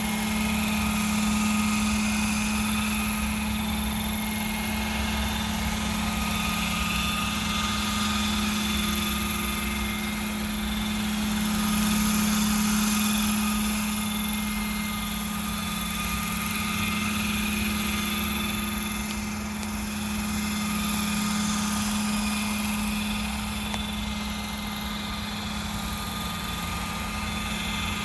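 Hirobo Dauphin radio-controlled scale model helicopter flying: a steady drone of its power unit and rotors with a few steady higher whines on top, growing louder and softer as it moves about, loudest about twelve seconds in.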